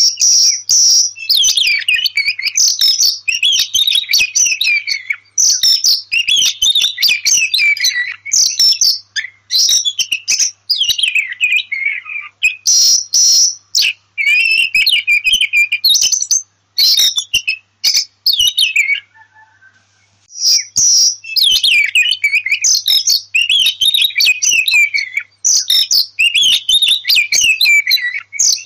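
Oriental magpie-robin song: loud, varied whistled phrases one after another with short gaps between them, and a break of about a second and a half about two-thirds of the way through.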